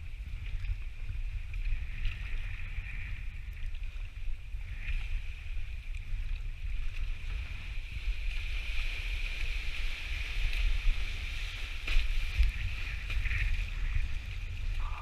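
Wind rumbling on an action camera's microphone over a steady hiss of water rushing and splashing around a one-person outrigger canoe (V1) being paddled in choppy sea.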